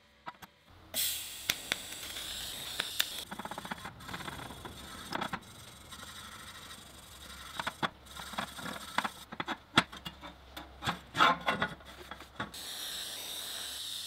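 Stainless steel square tube being scrubbed with a small wire brush: irregular scraping strokes with clicks and knocks on the metal. Near the end this gives way to the steady hiss of a TIG welding arc.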